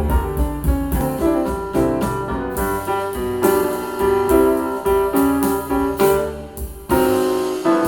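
Keyboard-led instrumental music, with notes struck in quick succession over a deep bass line that drops away for a moment about three seconds in and again near the end.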